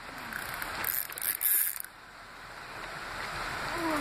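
Fishing reel working while a hooked carp is played: the reel's mechanism clicking and whirring, over the river's flow, with a brief louder stretch about a second and a half in.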